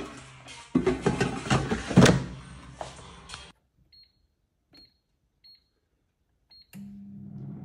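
Kitchen clatter of pans and utensils, then four short electronic beeps from a kitchen appliance's control panel as it is set, after which the appliance starts running with a steady fan hum.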